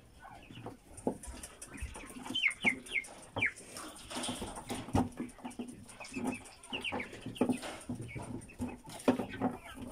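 White giant quail in a wire cage giving short, high, falling chirps in quick runs of two to four. Scattered knocks and rattles of the wire cage come as a bird is put inside, the sharpest about five and nine seconds in.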